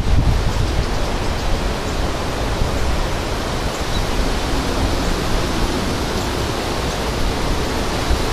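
Strong thunderstorm wind: a steady rushing hiss with low buffeting rumble on the microphone.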